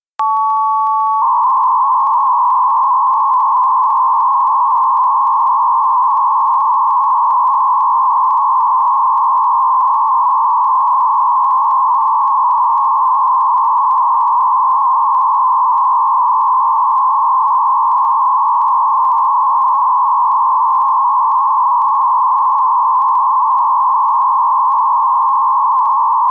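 8PSK250 digital data transmission centred around 1000 Hz: two steady tones for about the first second, then a dense, unbroken band of data signal at a constant level.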